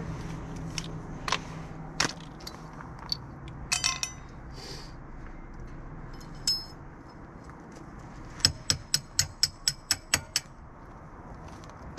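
Small hammer tapping on the metal of a Can-Am X3's front hub and axle assembly. Scattered clinks of tools on metal come first, then a quick run of about ten light, ringing taps, roughly five a second, near the end.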